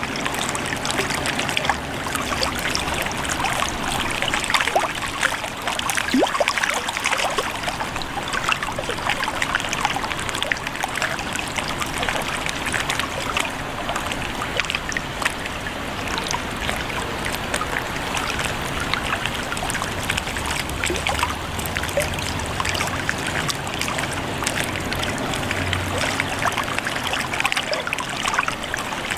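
Water trickling and lapping steadily, with many small splashing ticks throughout.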